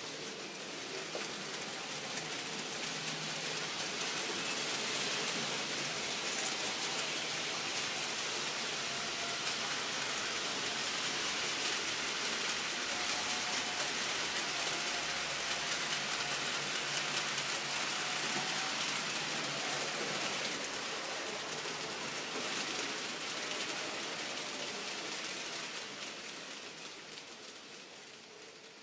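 N-scale model freight train running along the track: a dense, rain-like crackling hiss from the small wheels on the rails, with a faint motor hum. It grows louder over the first few seconds and fades away near the end as the train passes.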